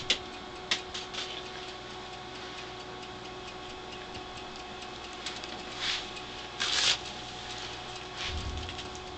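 A few light clicks and two short rustles, from a kitten playing fetch with a paper wad across a carpeted room, over a steady faint electrical hum.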